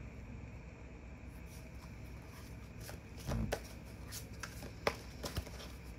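Tarot cards being handled: a scattering of light clicks and snaps of card stock, mostly in the second half, one with a soft low thump a little over three seconds in.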